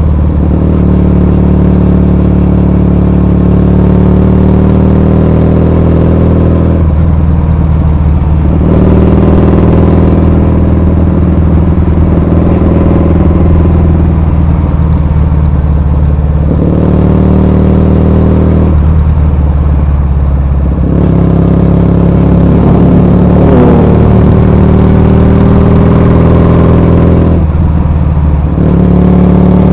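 Kawasaki W650 parallel-twin motorcycle engine running steadily under way, the engine note dipping briefly a few times as the throttle changes.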